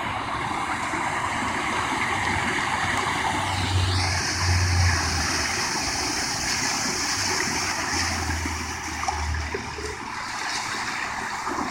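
Water rushing and splashing along the hull of a boat under way, over the low hum of its twin Mercury 175 Verado four-stroke outboards, which swells twice.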